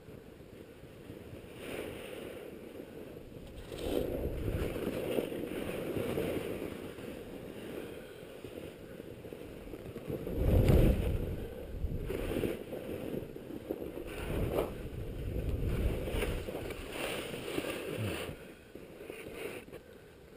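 Skis hissing and scraping over bumpy snow, with wind buffeting the camera microphone; the noise rises and falls in surges, loudest about halfway through.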